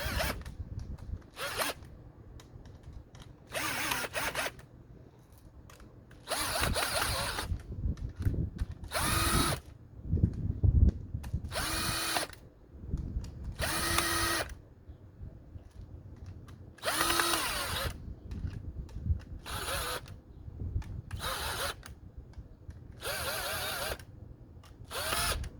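Power drill-driver running in about a dozen short bursts, starting the screws that hold an aftermarket air intake just far enough to get them threaded.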